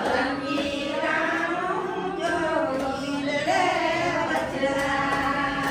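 A group of women singing a devotional song together, their voices held on long notes, with some talk mixed in.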